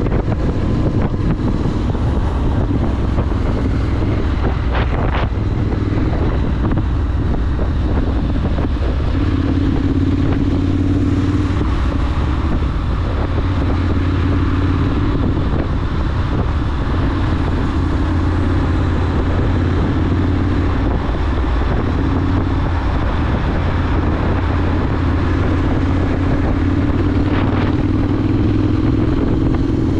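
Triumph Scrambler 900's parallel-twin engine, fitted with a ZARD exhaust, running steadily at cruising speed, its note swelling slightly now and then, with wind noise on the microphone.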